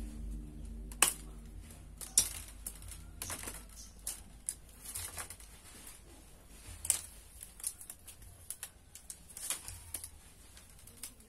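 Split bamboo strips being handled and woven by hand: irregular sharp clicks and taps as the strips knock and snap against each other, with a dry scraping rustle as they slide. The loudest clicks come about one and two seconds in and again near seven seconds.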